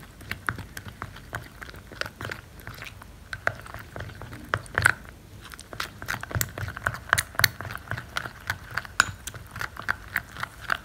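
Thick, creamy henna paste being stirred with a stick in a cut-glass bowl: a stream of short wet clicks and squelches as the stick works the paste against the glass, scattered at first, then coming several a second from about halfway in.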